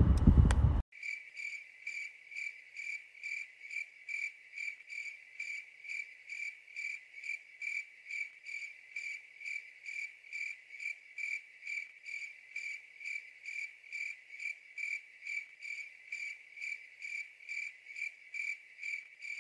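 Cricket chirping in an even, unbroken rhythm of about two and a half high chirps a second, starting abruptly about a second in as the voice cuts off.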